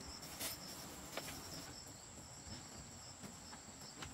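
Insects chirping in the background: a steady high buzz with a quick repeating chirp over it, and a few faint taps.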